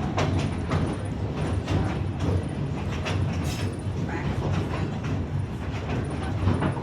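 Narrow-gauge passenger train riding along: a steady low rumble with irregular clicks and knocks from the wheels on the rails.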